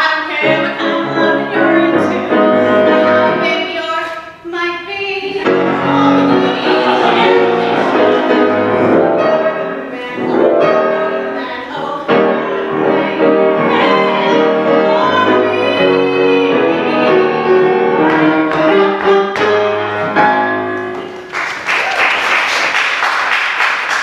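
A woman singing with grand piano accompaniment. About three-quarters of the way through, the song ends and the audience breaks into applause.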